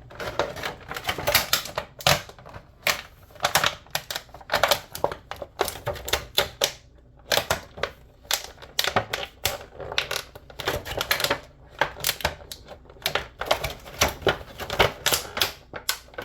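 Hard plastic of an action figure and its packaging being handled: rapid runs of clicks and crackles with a short lull about seven seconds in.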